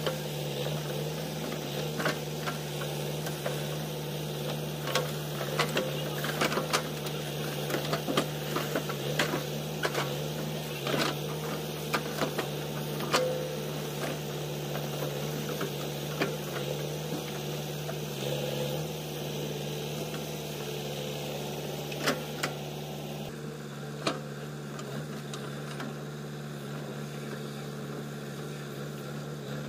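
JCB 3DX backhoe loader's diesel engine running steadily while the backhoe arm digs in mud, with irregular sharp knocks and clanks of the bucket and arm. The knocks come often for most of the time and thin out near the end.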